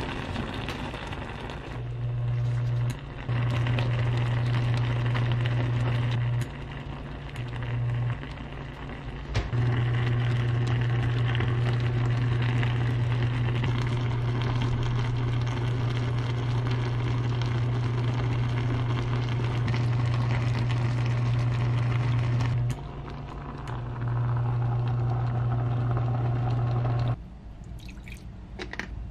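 Spicy cutlassfish braise (galchi-jorim) simmering in a pan, the sauce bubbling and sizzling. A strong low hum starts and stops several times, then ends near the close along with the bubbling.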